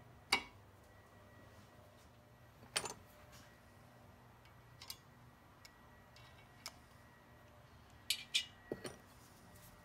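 Light metallic clicks and clinks of a steel swing-arm spindle and hand tools being handled: a sharp click just after the start, another about three seconds in, a few faint ticks, then a quick cluster of clinks near the end.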